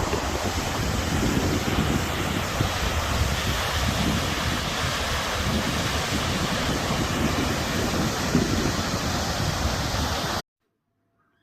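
Rushing water of a waterfall, a steady dense hiss, with wind buffeting the microphone. It cuts off abruptly near the end, leaving near silence.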